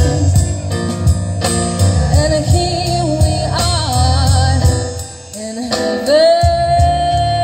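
A woman singing with a live band of stage piano, drum kit and trumpet. The level dips briefly about five seconds in, then a long held note begins around six seconds.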